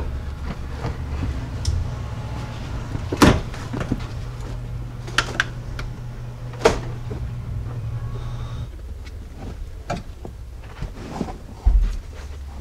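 Molded floor carpet of a Jeep Cherokee XJ being peeled up and pulled free of the floor pan, with scattered knocks and clacks as it is worked around the shifter. Under it runs a steady low hum that stops about nine seconds in.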